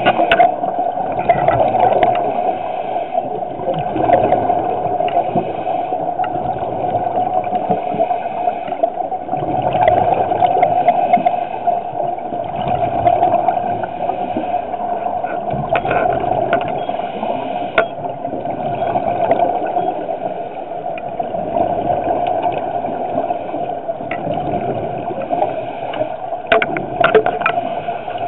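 Muffled underwater sound through a compact dive camera's housing: a steady hum with a rushing that swells and fades every few seconds, from the diver's scuba regulator breathing and exhaust bubbles. Scattered sharp clicks sound throughout, with a cluster near the end.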